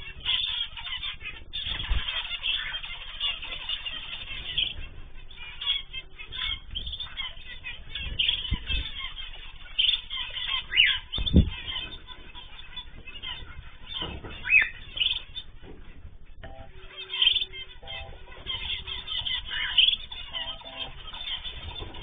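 Zebra finches in an aviary calling: a busy, continuous chatter of short calls, with a few thumps along the way.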